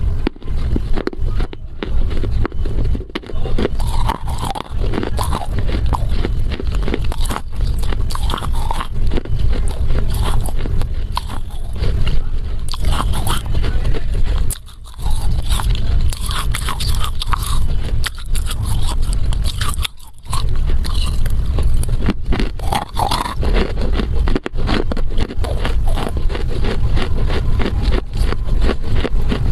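Chunk of Chinese loess clay being bitten and chewed close to a clip-on microphone: dense crunching and gritty grinding. There are short pauses about halfway through and again a few seconds later.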